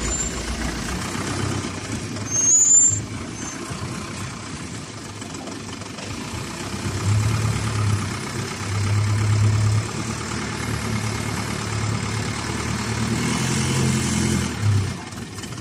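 Heavy diesel engine running, its low hum swelling and easing several times. A brief high squeal comes about two and a half seconds in.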